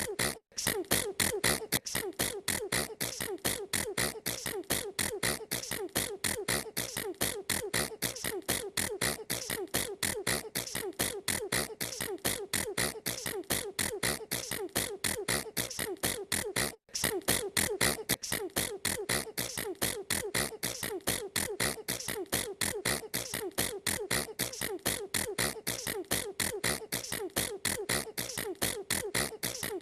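A girl sneezing over and over in a rapid, unbroken run of short sneezes, several a second. The run stops briefly about half a second in and again about 17 seconds in.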